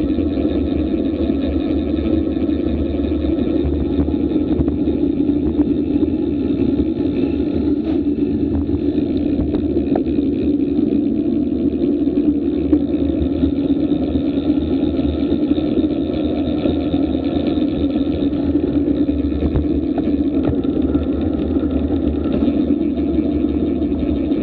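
Wind buffeting an action camera's microphone on a fast road-bike descent: a steady, loud, low rumble with no breaks.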